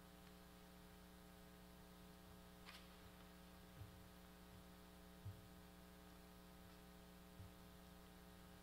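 Near silence: a steady electrical mains hum, with four faint low thumps spread through it.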